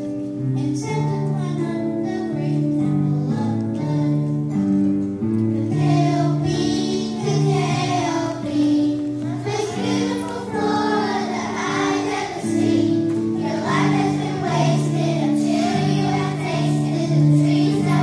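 Children singing a song from a school musical together over instrumental accompaniment with steady held low notes.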